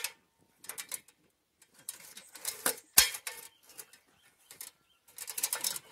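Hinge lock joints of an aluminium articulated ladder clicking and knocking as a section is pivoted open through its preset lock positions. The clicks come irregularly, the loudest knock about three seconds in and a quick cluster near the end.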